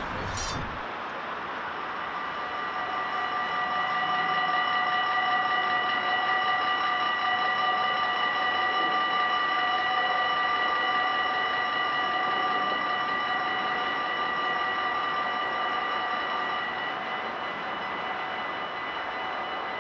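Dutch level-crossing warning bells ringing steadily while the red lights flash and the barriers come down, warning of an approaching train. About seventeen seconds in, part of the ringing drops out and it becomes a little quieter.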